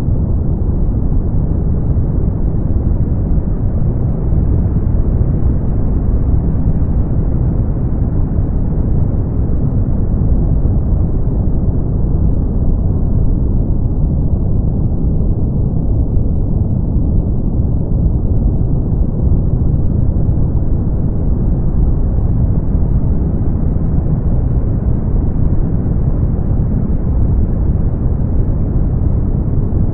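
Brown noise: a steady, deep hiss with most of its weight low down. Its higher part fades a little around the middle and then returns.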